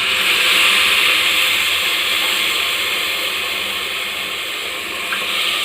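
Water poured into a hot pressure cooker of fried rice, vegetables and spices, hissing and sizzling loudly as it hits the hot pan. The hiss starts suddenly and slowly eases off.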